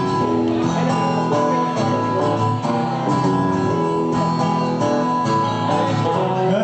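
Live band music: guitar chords strummed in a steady rhythm, with no vocals.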